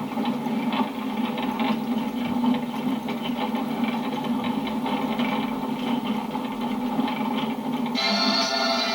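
A car driving on a rough road, heard from inside: steady engine and road hum with frequent small knocks and rattles. Music comes in near the end.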